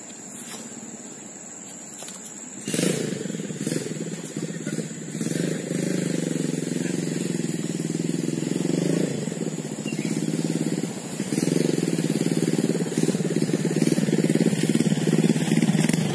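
Motorcycle engine running, cutting in sharply about three seconds in, its pitch rising and falling as the throttle opens and closes.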